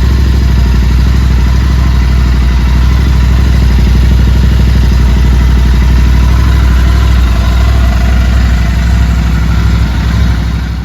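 Royal Enfield Interceptor 650's 648 cc parallel-twin idling steadily through a Powerage short aftermarket exhaust, freshly fitted and left to idle so the ECU can relearn. The sound fades out at the very end.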